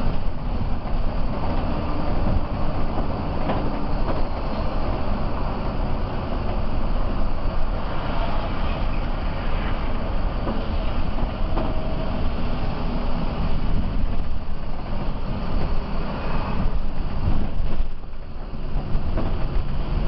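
Inside the cab of a moving Mercedes-Benz OH 1526 coach: the diesel engine runs steadily under a continuous hiss of tyres on a rain-wet road. The sound eases briefly near the end.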